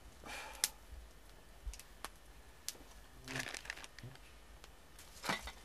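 Scattered short scrapes and crackles with a few sharp clicks from a man working with a hand tool, coming in brief bursts about half a second in, around three and a half seconds in and near the end.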